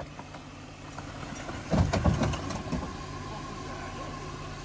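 Jeep Wrangler's 3.6-litre V6 running steadily as the Jeep crawls over loose rock. About two seconds in comes a loud, rough scraping crunch lasting about a second, the underside grinding on rock, which the spotter puts down to the muffler.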